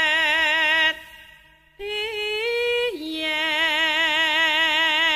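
Solo voice singing Javanese palaran, long notes held with a wide, even vibrato. The voice breaks off about a second in, returns after a short gap on a higher note that slides upward, then drops back to the lower pitch and holds it.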